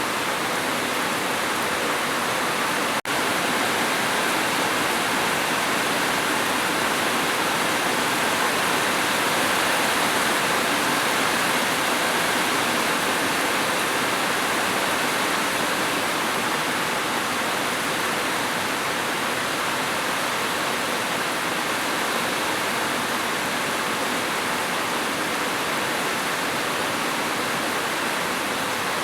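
Steady rain, a dense even hiss, that cuts out for an instant about three seconds in.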